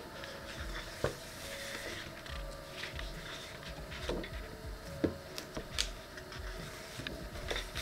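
Sheets of a paper design pad being leafed through and handled: soft paper rustling with a few light taps and clicks, the sharpest about a second in and around four to six seconds in.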